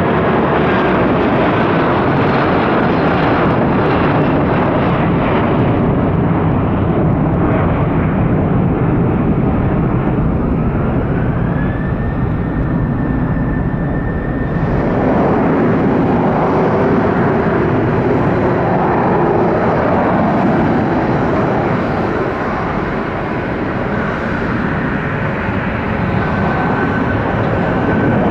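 Jet engines of a Boeing 757 at takeoff thrust as it climbs away, a loud, steady jet noise with a thin whistle that rises in pitch about ten seconds in and then holds. About halfway through the sound changes abruptly to a second jet airliner, a Boeing 737, running at takeoff thrust on its takeoff roll.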